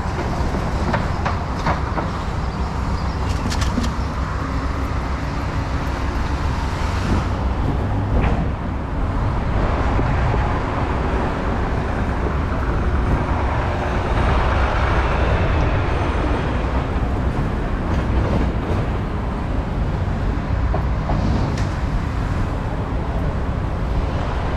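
A vehicle driving, with a steady low engine and road rumble and a few small clicks and knocks.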